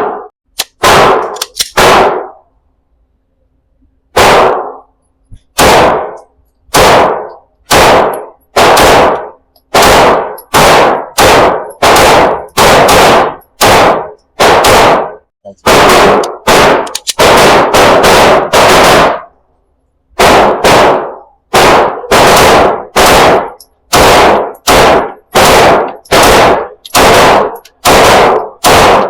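A 9 mm pistol fired in a fast, steady string of loud sharp shots, roughly one to two a second. There is a short pause about three seconds in and another about twenty seconds in.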